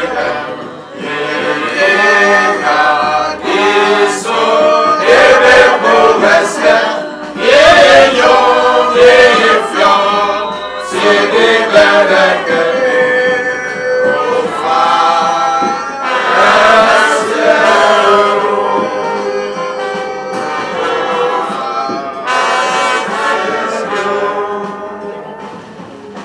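A small group of voices singing a hymn together, with held notes, growing quieter over the last few seconds.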